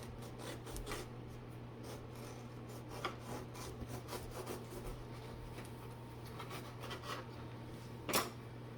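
Scattered rubbing and scraping handling sounds with a few light knocks, the loudest near the end, over a steady low electrical hum.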